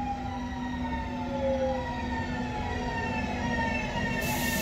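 NSB Class 72 (BM 72) electric multiple unit braking into a station, its traction motors whining in several tones that fall slowly as it slows, over a steady low hum and rolling rumble. A short hiss breaks in about four seconds in.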